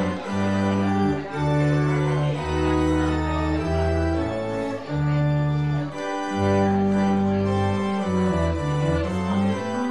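Church organ playing sustained chords, with the bass notes changing about once a second.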